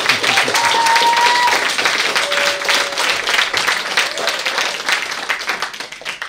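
Audience applauding, with a few voices calling out over the clapping; the applause fades out at the end.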